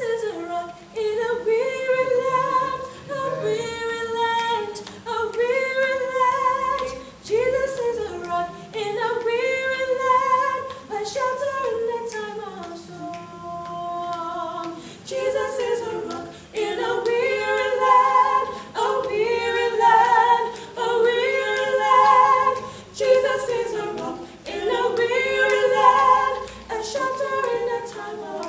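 A five-voice a cappella gospel group, men's and women's voices together, singing unaccompanied in close harmony, in held chords phrased every couple of seconds.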